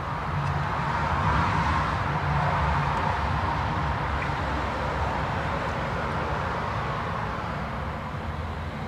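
Road traffic on the street below: a steady rush of tyres and engines that swells about a second in and slowly eases off, as of a vehicle passing.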